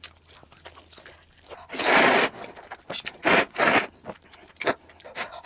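Spicy ramen noodles slurped in several short, loud bursts, after faint quick chewing clicks; the eating is played fast-forward.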